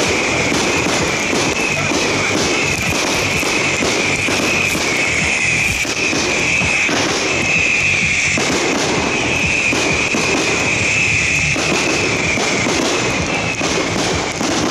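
Continuous barrage of aerial firework shells bursting and crackling, with music playing along.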